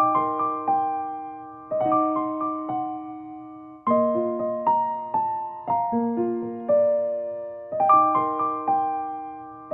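Background piano music: a slow, gentle melody of struck notes that ring and fade, with a new phrase starting about every two seconds.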